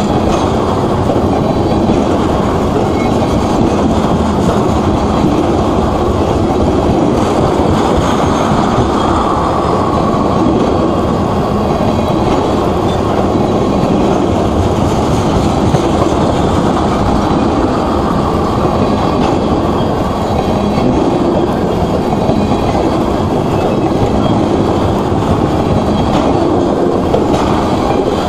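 Tank cars of a long freight train rolling past close by: steel wheels running on the rails, a steady loud rumble that neither builds nor fades.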